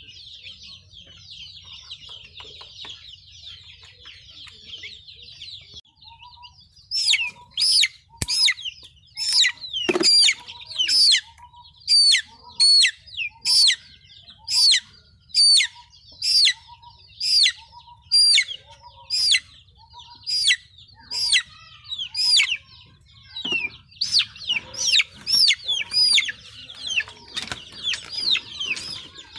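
Chicks cheeping in a steady high chatter; from about seven seconds in, a chick gives loud distress peeps, each sliding downward, about one a second, while its clipped beak is cauterized with a hot soldering iron.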